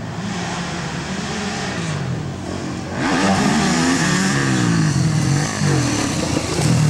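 Motocross dirt bike engines racing, revving up and down through the gears. They get louder about three seconds in as the bikes come close.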